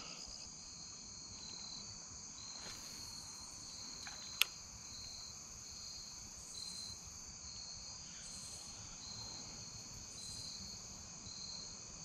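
Chorus of crickets and other insects: a faint, steady high trill that pulses evenly. One sharp click about four seconds in.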